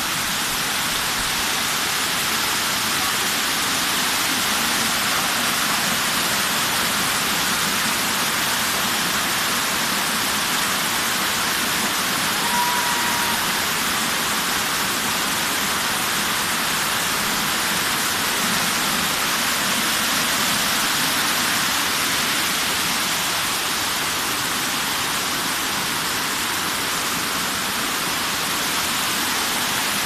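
A waterfall cascading down sloping rock slabs, a steady, unbroken rush of water.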